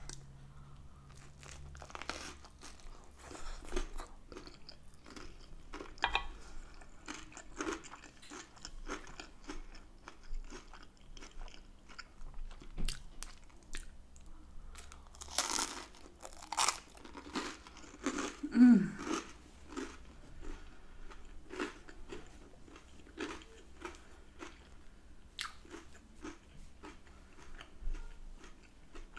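Close-up eating sounds of spaghetti bolognese being chewed: a steady run of small wet clicks, smacks and crunches, with a few louder bites about halfway through.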